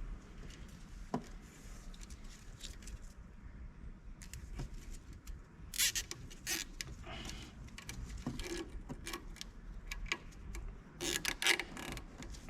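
Scattered light clicks and metallic clinks from hand work on a car's front brake and suspension parts, with two brief rattling bursts about six and eleven seconds in.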